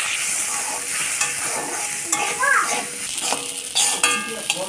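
Soaked Gobindobhog rice sizzling as it is lightly fried in hot mustard oil in a kadai, stirred with a spatula that scrapes and clicks against the pan every so often.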